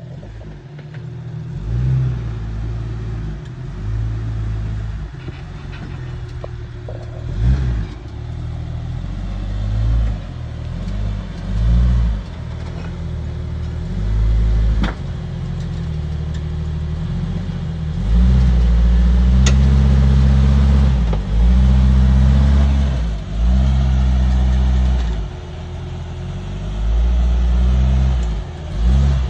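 Waterfall rushing, with heavy low rumbling gusts of wind across the microphone that swell and drop every second or two.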